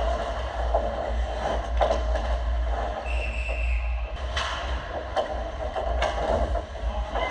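Ice hockey skates scraping and carving the ice, with sticks and puck clattering around the goal crease. Several sharp knocks stand out among them, over a steady low hum.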